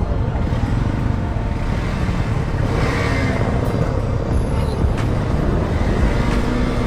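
Several motorcycle engines running together, a steady low mechanical rumble, with a brief swell of louder noise about three seconds in.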